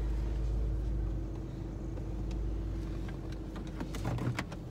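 Car engine running, heard from inside the cabin as a steady low rumble, with a few light clicks near the end.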